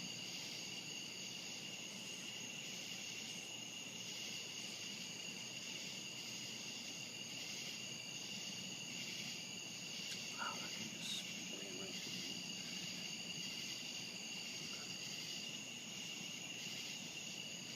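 Steady chorus of crickets and other night insects: several high, unbroken trills layered together. A brief faint chirp comes about ten seconds in.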